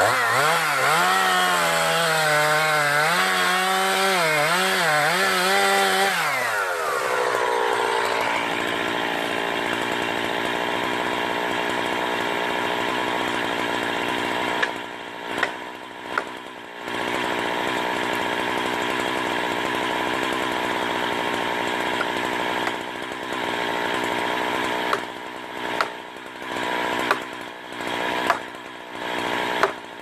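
Gas chainsaw cutting into the trunk of a standing tree to fell it. The engine's pitch wavers for the first few seconds, then holds at full revs under load, with brief dips where the throttle is let off, several times near the end.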